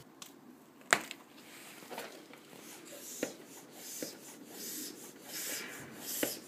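Hand bicycle pump being worked on a patched inner tube: a sharp click about a second in, then repeated airy hisses of the pump strokes with a light knock at each, toward the end.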